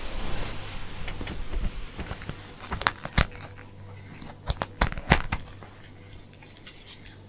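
A few sharp clicks and knocks in the middle seconds, over a faint hiss and a low steady hum.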